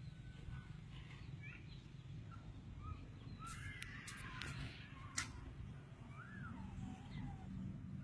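Birds calling outdoors in short chirps and rising-and-falling calls over a steady low rumble, with a quick run of sharp clicks around the middle, the last one the loudest.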